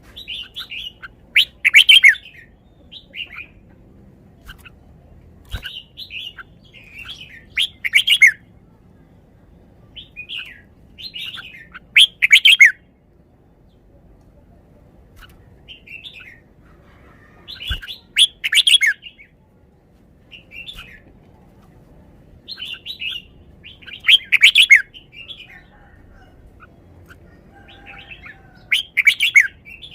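Red-whiskered bulbul singing its short, loud warbled song phrases, repeated about six times, every five to six seconds, with quieter chirps between them.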